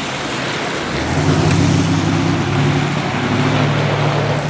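A motor vehicle engine running steadily, its low hum coming in about a second in, over a constant hiss of outdoor traffic noise.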